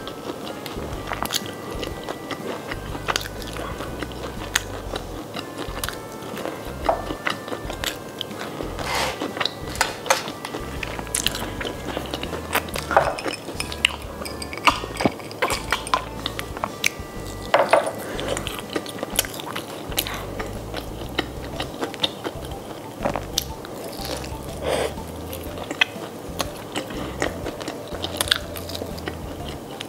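Close-up biting and chewing of crispy breaded fried chicken, with irregular sharp crunches of the crust.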